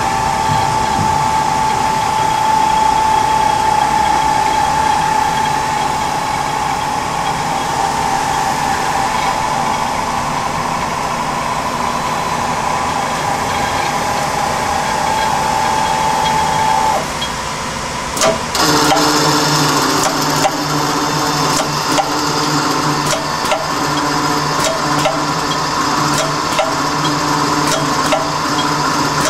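Steady running noise of a powered-up CNC Swiss-turn lathe, with a whine held for most of the first two-thirds. About 18 s in the whine stops with a click, and a lower, even machine hum with rapid irregular ticking takes over.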